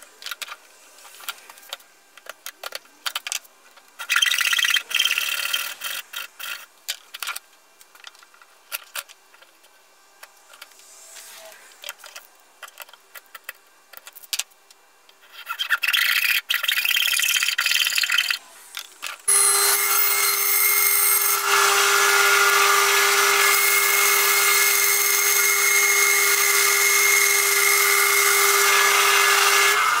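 Backsaw cutting wood clamped in a bench vise, in two spells of quick sawing strokes with small clicks and handling noise between them. About two thirds of the way in, a bandsaw starts and runs steadily with a hum while cutting a small piece of wood.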